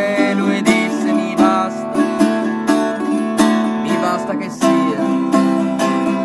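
Small acoustic travel guitar strummed in a steady rhythm, about three strokes a second, with the chord changing about four and a half seconds in.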